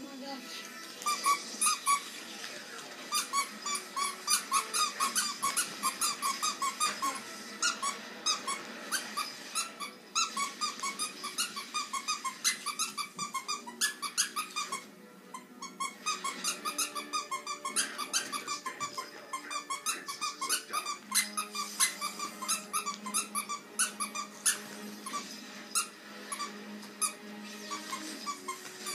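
Squeaky plush dog toy squeezed over and over, giving rapid short high squeaks several times a second with brief pauses.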